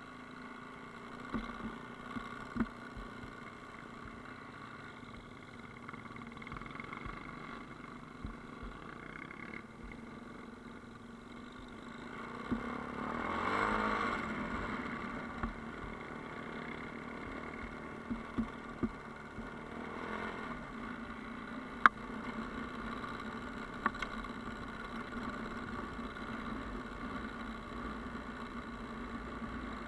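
Motorcycle engine running steadily on the move, swelling louder for a couple of seconds a little before halfway. Several sharp knocks stand out over it, the loudest about two-thirds of the way through.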